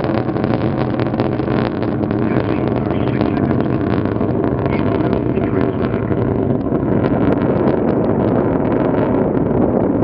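Delta IV rocket engine noise during ascent: a loud, steady, deep rumble with a continuous crackle.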